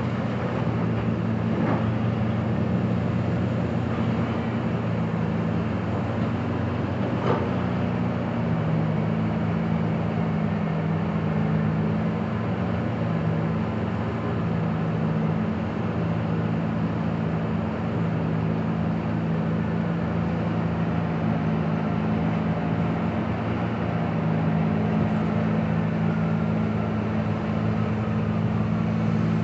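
Diesel engine of a Komatsu PC2000 mining excavator running steadily under load as it digs and swings, its low drone shifting in pitch a little about eight seconds in. A faint knock comes about seven seconds in.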